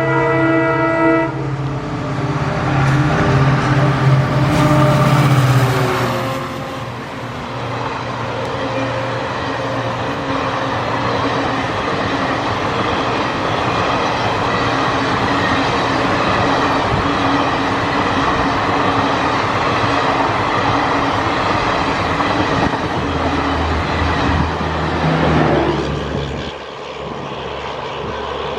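WDP4B diesel-electric locomotive passing under acceleration. Its horn chord cuts off about a second in, then its EMD two-stroke V16 engine runs hard for several seconds. The passenger coaches follow with a long, steady rumble and clatter over the rail joints, and a low drone swells briefly near the end.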